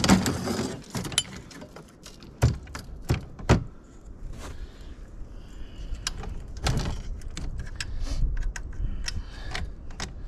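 Metal-framed wooden sled being handled: a loud clatter as it starts, then separate knocks and light metallic rattles from the tubular frame and hinged back panel as they are moved and set in place.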